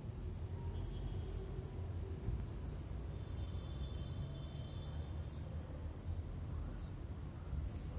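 A bird repeating short, high, falling chirps about once a second over a steady low rumble.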